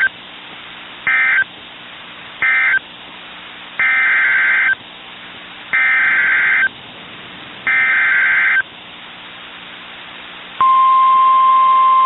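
NOAA Weather Radio SAME alert data bursts: two short raspy two-pitch bursts, the tail of the end-of-message code, then three longer bursts about two seconds apart, the header of a new alert. About ten and a half seconds in, the steady 1050 Hz warning alarm tone starts and holds.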